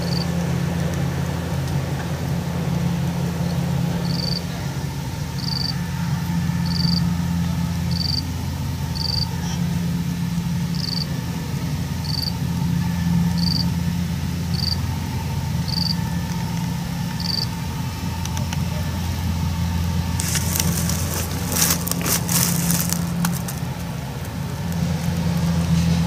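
Kubota DC70 combine harvester running steadily as it works the field, a low, even engine hum. A short high chirp repeats about once a second through the first half, and a burst of crackling comes near the end.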